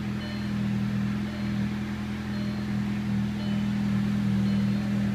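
Turbocharged 1.8-litre four-cylinder engine of a 2000 Audi A4 idling steadily, heard from inside the cabin. The idle is still raised after start-up and has not yet come down.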